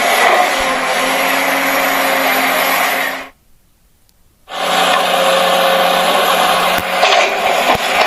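Small electric motors and gearboxes of a radio-controlled excavator whining steadily. They stop about three seconds in, go quiet for roughly a second, then start up again.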